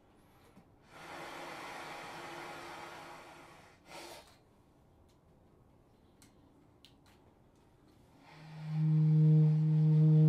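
Avant-garde jazz music track. A breathy rush of air lasts a couple of seconds, then comes a short second puff and a few faint clicks. A low, steady held note with overtones swells in near the end and is the loudest sound.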